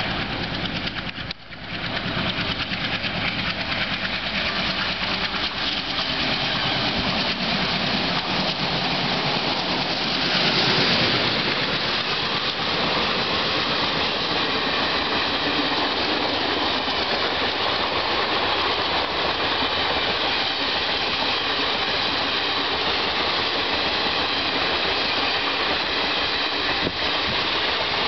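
WDM-3A diesel-electric locomotive with an ALCO 16-cylinder turbocharged engine running as it approaches and passes, loudest about ten seconds in. After that, the steady rumble and clatter of passenger coaches rolling past on the rails.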